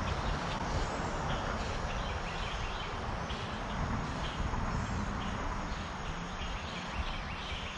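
Steady hum of road traffic from nearby urban streets, with short high chirps repeating over it.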